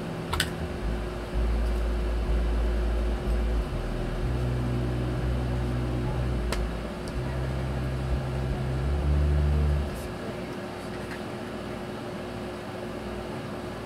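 Steady low hum and rumble of room noise, shifting in level every few seconds, with a couple of faint clicks.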